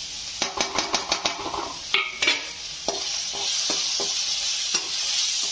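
Steel spatula scraping and clicking against a frying pan as dry spice powders are stirred into frying onion paste, over a steady sizzle that grows louder in the second half.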